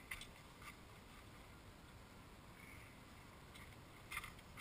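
Near silence with a few faint footsteps on dry dirt: one at the start and a couple more about four seconds in.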